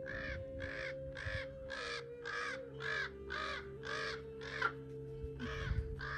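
A large black corvid giving a steady run of harsh caws, about two a second and around ten in all, with a short gap near the end. The calls are agitated, made at a person close to its perch.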